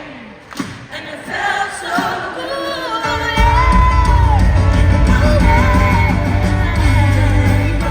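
Live pop song heard from the audience: voices singing with yells from the crowd, then the full band comes in with heavy bass and drums about three seconds in.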